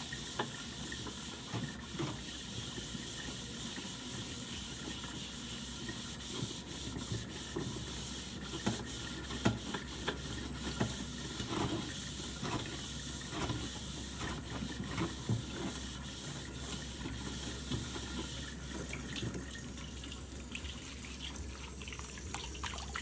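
Kitchen tap running steadily into a steel wok in a stainless steel sink, with a sponge scrubbing the wok's surface in scattered light strokes and knocks as rust is cleaned off with Bar Keepers Friend cleanser.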